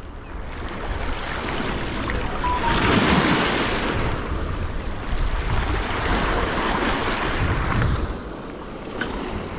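River water washing and splashing against a rocky shore, with wind buffeting the microphone. The noise swells a few seconds in and eases near the end.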